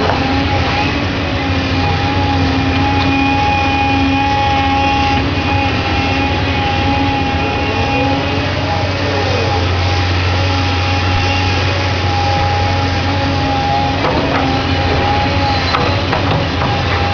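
Doosan DX235LCR excavator at work: its diesel engine running steadily with a steady whine on top, a brief rise and fall in pitch about eight to nine seconds in, and a few knocks late on.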